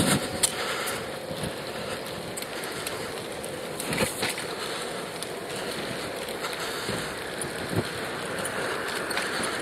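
Steady wind and rolling noise from riding a recumbent bicycle, picked up on the rider's earpiece microphone, with a few light knocks from bumps, one about four seconds in and another near eight seconds.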